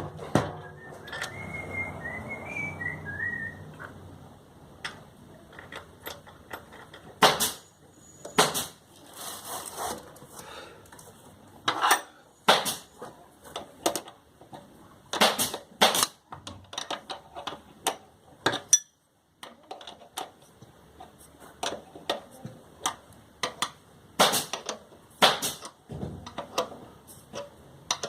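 Irregular sharp clicks and clinks of small metal parts and tools being handled. A brief wavering whine runs from about one second in to about four seconds in.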